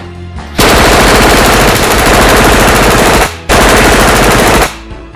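Automatic rifle fire in two long, very loud bursts: a stream of rapid shots lasting almost three seconds, a brief break, then a second burst of just over a second.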